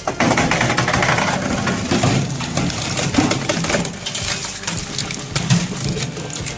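Machinery clattering: a busy run of quick knocks and clinks over a running machine.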